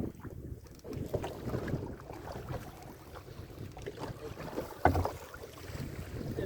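Wind buffeting the microphone and low, uneven noise of a small fishing boat at sea. There are scattered light knocks, and one sharp knock about five seconds in.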